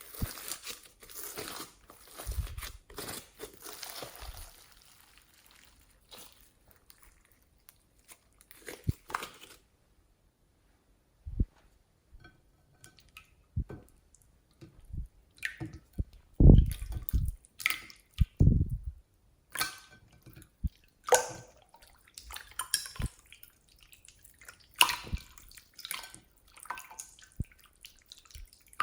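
Slime being squeezed and stretched by hand, giving irregular wet clicks and pops, with a short pause about ten seconds in and a few louder, deeper squelches past the middle.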